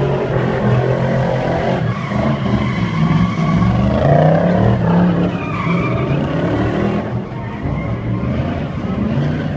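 BMW E36 drift car's engine revving up and down, its pitch rising and falling repeatedly, while the rear tyres skid through a smoky slide.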